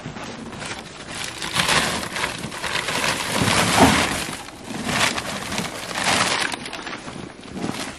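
Woven plastic sacks and a plastic bag rustling and crunching as they are handled and pulled out of a van's load space, in several loud bursts, with footsteps crunching in snow.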